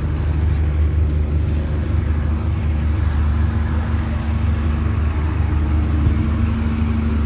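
A motor or engine running steadily: a loud, low, unchanging hum.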